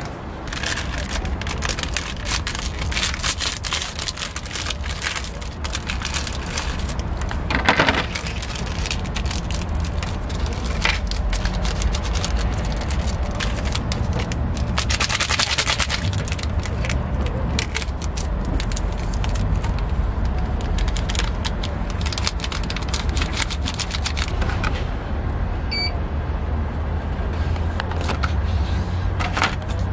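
Crinkling plastic ramen packaging and seasoning packets being torn and shaken into a paper bowl, over a steady low rumble. A short electronic beep from the ramen machine comes near the end.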